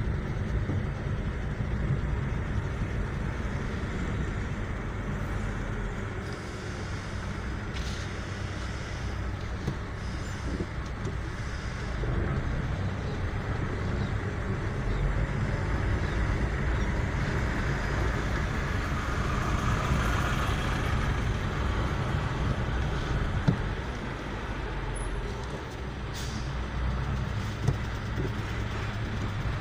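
Steady low rumble of road traffic and the car's own engine and tyres, heard from inside the cabin in slow, crawling traffic with trucks close ahead. Two short hisses stand out, about eight seconds in and near the end.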